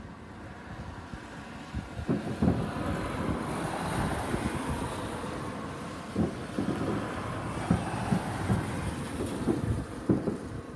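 Fireworks going off: irregular low booms and crackles over a broad rushing noise that swells through the middle.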